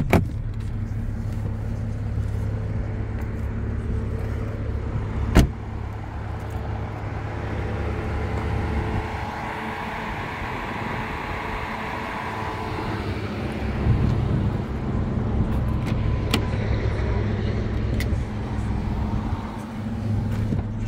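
Mercedes-AMG C43's twin-turbo V6 idling steadily. There is a sharp knock about five seconds in and a few lighter clicks near the end.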